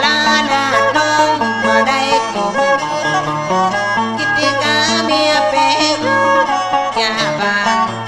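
Northern Thai khap so music: bowed and plucked string instruments play a melodic passage over a steady low drone.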